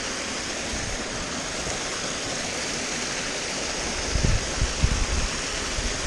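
Mountain beck waterfall rushing steadily close by, with a few low bumps about four to five seconds in.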